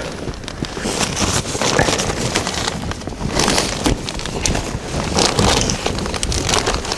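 Wind buffeting the microphone in low rumbling gusts, with scattered crunching and clicking noises.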